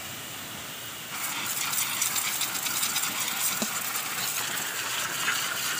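Pressure washer spray hissing, then about a second in growing louder and crackly as the jet blasts mud off a surface.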